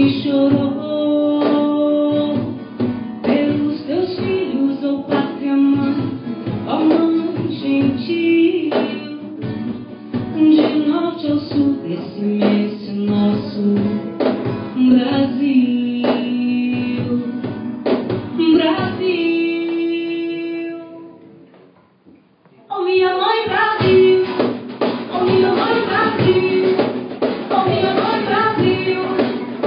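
Live acoustic band: a woman singing over two acoustic guitars and a cajón. About three-quarters of the way through, the music fades away almost to silence, then comes back in abruptly with voice and guitars.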